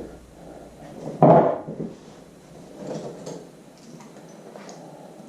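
Handling sounds of hands working sealant around a fitting on a plastic kayak hull: one short, louder scuff about a second in, then fainter scuffs and ticks.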